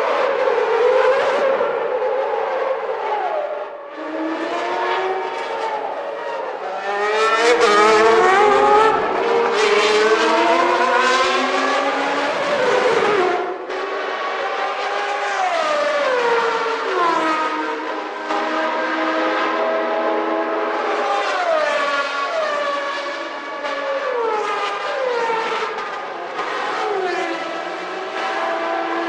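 Formula One car engines screaming at high revs, several at once, their pitch repeatedly climbing and then dropping in falling steps. It is loudest and most crowded midway, as a bunch of cars goes by.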